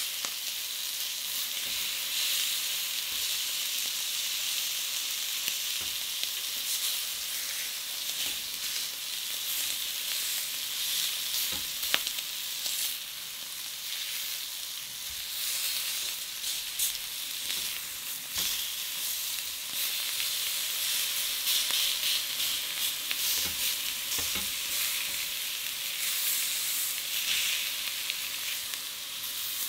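Pieces of lamb saddle sizzling steadily on a hot ridged grill pan as the meat sears. A few sharp clicks come from the metal tongs as the pieces are placed and turned.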